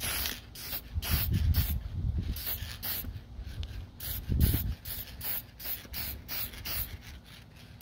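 Aerosol can of Kamar varnish spraying a clear sealing coat in short repeated bursts, about three a second, with a brief pause a little after three seconds in.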